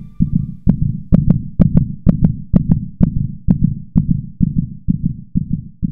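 Heartbeat sound effect: a steady run of paired low thumps (lub-dub), about two beats a second, growing a little softer over the last couple of seconds.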